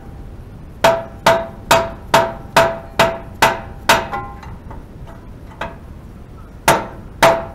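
Hammer striking a metal part of a hay mower, each blow ringing briefly. Eight evenly spaced blows at about two a second, then after a pause two more near the end.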